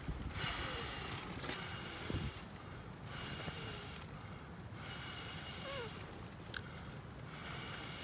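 Breath blown in repeated puffs through a fire-blowing pipe into a campfire, a rushing hiss about every second and a half, five or six times.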